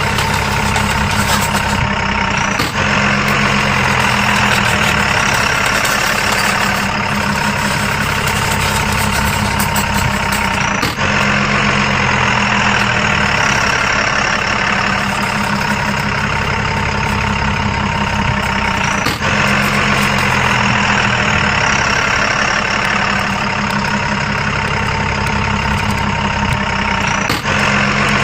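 Radio-controlled excavator running steadily: a continuous engine-like hum with a high mechanical whine on top, changing character a few times.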